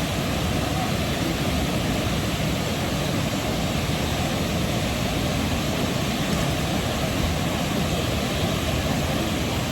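Waterfall water rushing: a steady, even noise that holds without change throughout.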